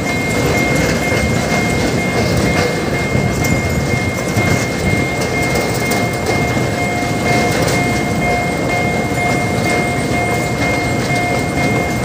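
Narrow-gauge sugar-railway train of sugarcane wagons rolling across a level crossing: a steady rumble with scattered clacks of wheels over the rails. The crossing's warning signal sounds a steady ringing tone over it.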